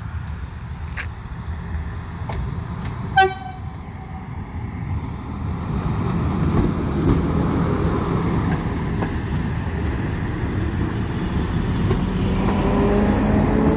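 PolRegio SA137 diesel railcar sounding a short horn toot about three seconds in, then running past at close range with a loud deep rumble of engine and wheels, a rising tone coming in near the end.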